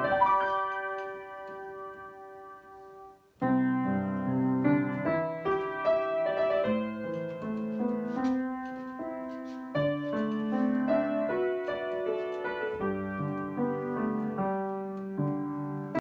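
Background piano music. A held chord dies away over the first three seconds, there is a brief pause, and then a new phrase of notes and chords starts.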